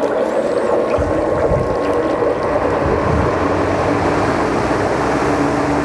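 Large industrial drum fan running steadily with a constant whirring hum, and a low rumble coming in about a second in.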